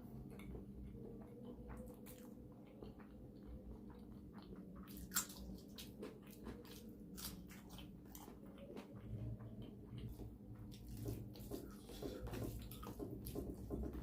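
Close-up eating sounds: faint chewing and wet mouth noises with scattered small clicks, one sharper click about five seconds in, and busier chewing over the last few seconds, over a steady low hum.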